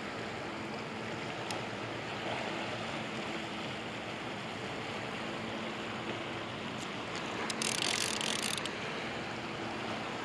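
Steady rush of fast, turbulent tailwater current below a dam, with a faint steady hum underneath and a brief rasping burst about eight seconds in.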